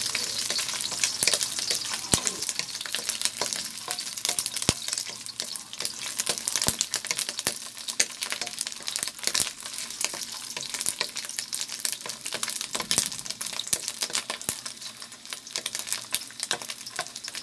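Sliced Chinese sausage sizzling and crackling in hot oil in a wok, with many small pops of spitting fat. A wooden spatula stirs and scrapes the pan, with occasional knocks against the metal.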